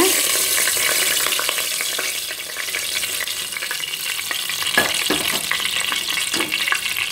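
Leftover chicken-frying oil sizzling and crackling in a kadai as it is poured in, with a dense patter of small pops and a few louder ones about five and six and a half seconds in.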